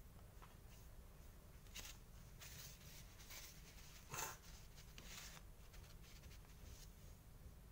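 Faint handling sounds of a small diecast metal toy car body being picked up and set down on a paper towel: a few soft rustles and light clicks, the clearest one about four seconds in, over a low steady hum.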